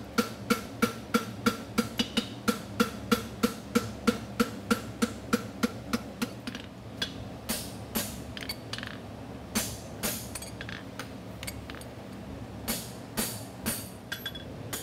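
Farrier's hammer beating hot horseshoe steel on the anvil horn, about three even blows a second, each one ringing from the anvil. From about six seconds in the blows turn slower and irregular as he strikes a handled tool set on the shoe at the anvil face. A fan hums steadily underneath.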